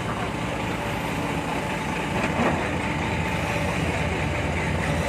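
Heavy diesel engine running steadily, from the machinery at work recovering a dump truck stuck off the track.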